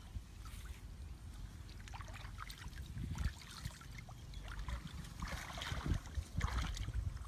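Wind rumbling on the microphone, with scattered rustles, crackles and snaps of shrubs and dry vegetation being cut and pushed through. The rustling thickens about five seconds in.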